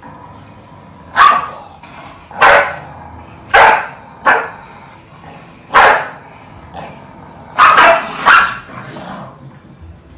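Corgi barking: seven loud, sharp single barks at irregular intervals about a second apart, a couple of them in quick pairs.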